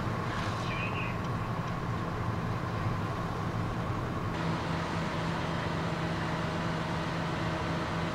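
Fire truck diesel engine running steadily: a low mechanical drone with a constant hum.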